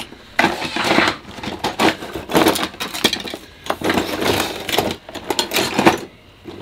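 Metal kitchen utensils clinking and clattering irregularly as a hand rummages through a crammed cutlery and utensil drawer.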